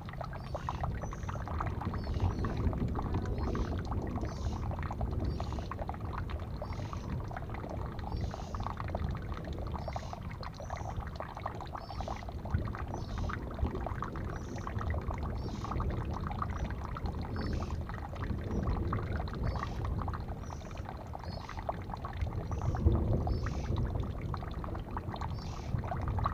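Water from a small rock garden fountain pouring from stacked pots into a stone basin and spilling through a spout: a steady splashing trickle. Short high-pitched sounds repeat about once a second over it.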